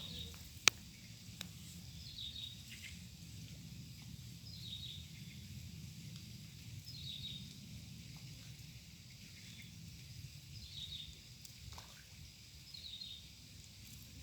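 Quiet outdoor ambience with a low steady rumble. A short, high, falling chirp repeats about every two seconds, and there is one sharp click about a second in.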